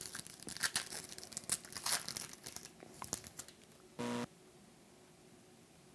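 Trading-card pack wrapper being torn open and crinkled by hand: about three seconds of tearing and crackling, then quiet handling.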